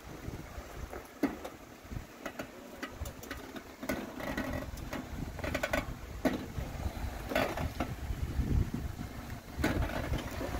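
Off-road vehicle crawling at low speed over a rocky trail: the engine runs with a low rumble while irregular knocks and clunks come through every second or so.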